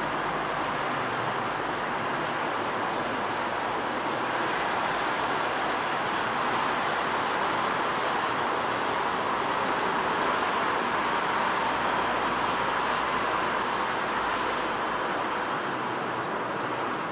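Steady distant traffic noise that swells a little around the middle and eases near the end.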